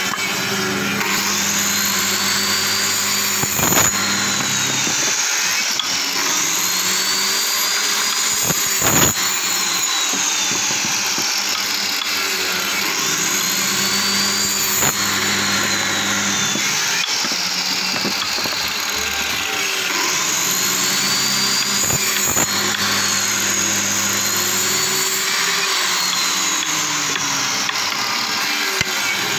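Handheld electric circular cutter running while its blade cuts through a wooden block in repeated passes. Its whine rises and falls with each pass, and there are a couple of short knocks.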